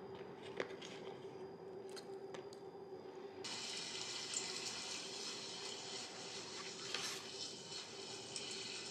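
A kitchen tap is turned on about three seconds in, and water runs steadily into a sink. Before that come a few light clicks and knocks of handling over a steady hum.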